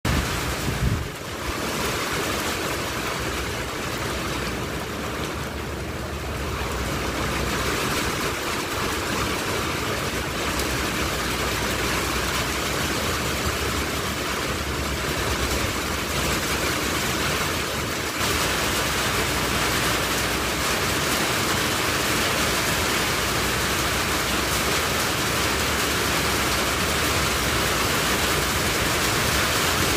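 Heavy rain pouring into a muddy, flooded puddle: a steady hiss of splashing drops that gets a little louder a bit past halfway.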